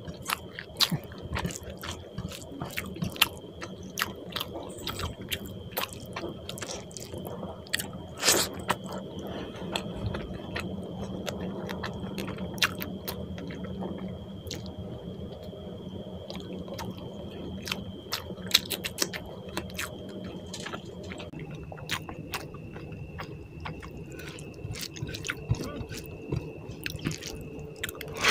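Chewing and wet mouth sounds of someone eating rice with puti fish curry by hand, with squishing as the fingers mix rice into the gravy and many small sharp clicks throughout.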